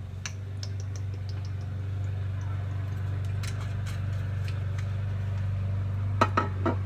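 Steady low hum of a running kitchen appliance while the pan heats on the stove. A few light clicks and clinks come near the end.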